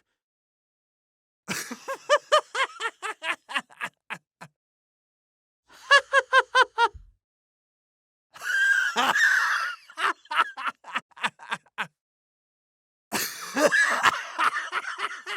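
Four separate bursts of human laughter with short silences between them, each a quick run of 'ha-ha' pulses that fades out; the first two are high-pitched and clear, the later two breathier and noisier.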